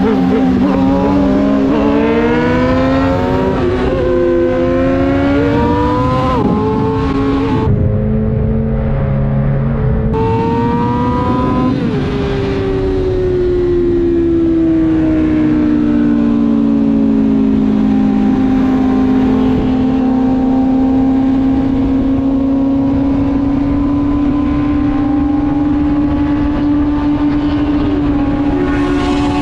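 Car engine under hard acceleration through several gears: the pitch climbs and drops back at each upshift. Then the pitch falls as the car slows and settles into a steady cruise.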